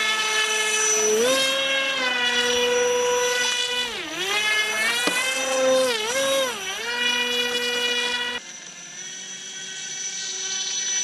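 Electric motor and propeller of an RC airboat whining at speed, the pitch rising and dipping several times as the throttle is worked. About eight seconds in, the whine turns abruptly quieter and thinner.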